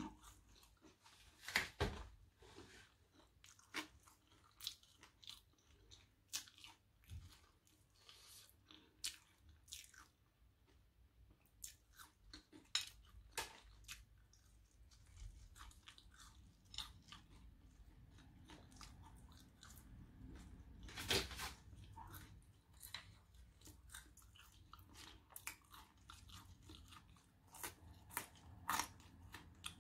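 Quiet close-up chewing of French fries in currywurst sauce: soft wet mouth sounds and lip smacks, coming as short separate sounds every second or so.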